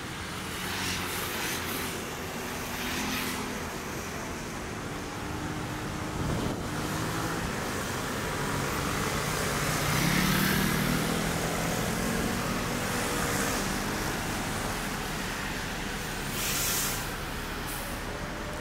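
City road traffic passing: a steady rumble of cars, with one vehicle's engine swelling and fading about ten seconds in, and a few hissing swishes of passing vehicles near the start and near the end.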